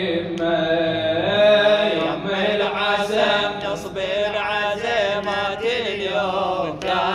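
Chanted vocal of a Shia latmiya lament, with long melodic lines held and bent on vowels and no clear words.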